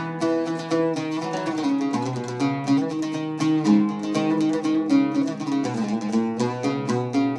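Background music: quick, repeated notes plucked on a string instrument over sustained lower notes.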